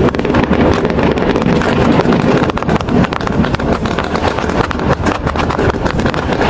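Fireworks crackling and popping in a rapid, unbroken stream of small bangs over a low rumble.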